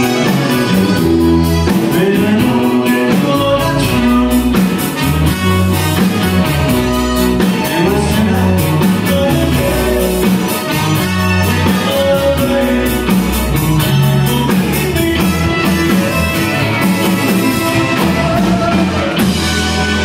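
Live band playing Tex-Mex country rock: trumpet, button accordion, electric guitar, keyboard and drum kit, with a steady beat.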